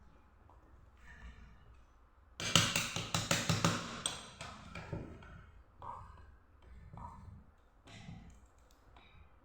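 Metal parts clicking and clattering as they are handled. There is a fast run of clicks about two and a half seconds in, then a few softer taps and knocks.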